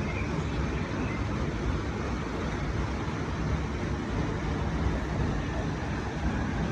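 Steady rush of flowing water at a water-powered mill, an even low noise without pauses.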